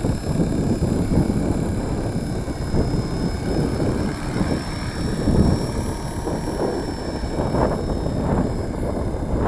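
Strong wind buffeting the microphone in gusts, over a faint, steady high-pitched whine from a Walkera V450D03 electric RC helicopter hovering, its pitch wavering slightly.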